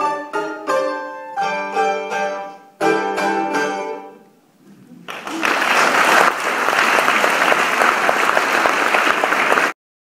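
A mandolin trio plays its last few quick plucked notes, then a final strummed chord that rings out and fades. About five seconds in, the audience breaks into applause, which cuts off suddenly near the end.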